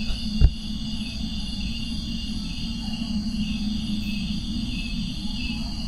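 Steady high-pitched insect chirring, like crickets, pulsing slightly, over a low hum, with a single thump about half a second in.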